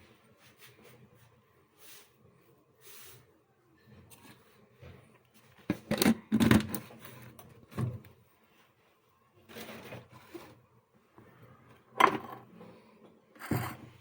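Handling noises: scattered light clicks, knocks and rubs, with louder knocks about six seconds in, near eight seconds and again around twelve seconds.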